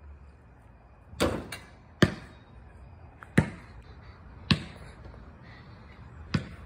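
A basketball bouncing on a concrete driveway: about half a dozen sharp thuds at uneven spacing, a second or so apart.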